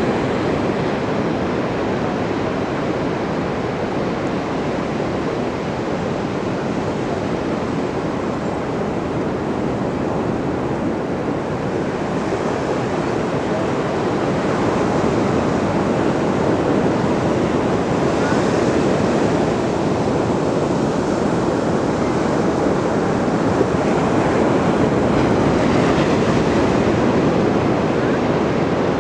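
Ocean surf washing ashore in continuous noise, swelling and easing as waves break, with a few louder surges.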